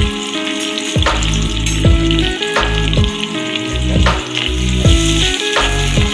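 Onions sizzling as they fry in a pot, stirred now and then, under background music with a steady beat about once a second.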